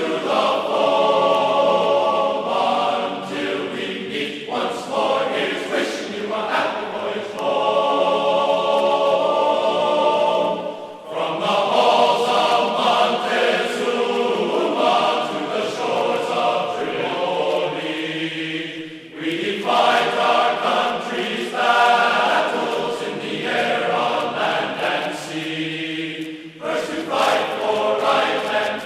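Background music of long held chords, each lasting a few seconds, with short breaks between phrases.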